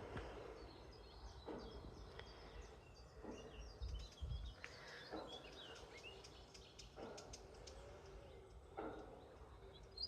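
Faint birds chirping in the woods over a distant machine that clunks about every two seconds above a steady low hum, a sound like a wind turbine.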